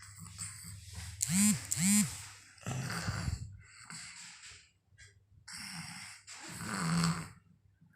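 A sleeper snoring: two short squeaky sounds that rise and fall in pitch about half a second apart, then three noisy snoring breaths.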